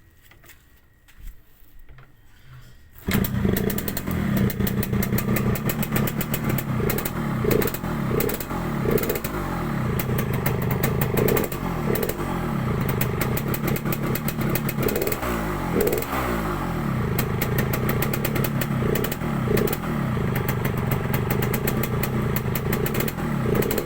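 Yamaha RX-King's two-stroke single-cylinder engine catches about three seconds in, then idles while warming up, with a crisp, raspy exhaust note and a few brief rises in revs.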